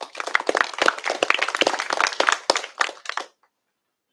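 Audience applauding at the end of a short talk, a dense patter of handclaps that dies away after about three seconds.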